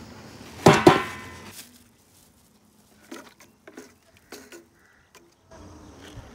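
Stainless steel pot lid clanking against its steel food container about a second in, a sharp metallic clatter with a brief ring. A few light clicks and taps follow.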